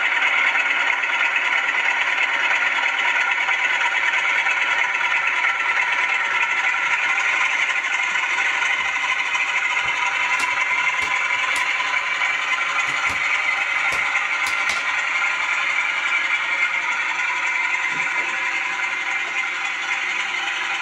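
Model Class 47 diesel locomotive's Zimo ZS47A sound decoder playing a steady diesel engine sound through its small speaker as the model runs. Around the middle come a handful of sharp clicks from the wheels over rail joints and pointwork. The sound eases off slightly near the end as the loco moves away.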